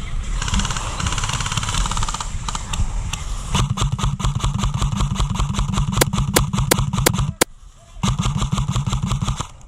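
Airsoft electric guns firing on full auto in long bursts: a rapid stream of clicks over the buzz of the gearbox motor. The firing breaks off briefly about seven and a half seconds in, then starts again.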